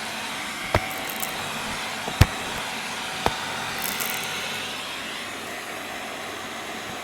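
Vacuum cleaner running steadily while picking up crunchy debris, with three sharp cracks, the loudest about two seconds in, and a brief crackle a little after.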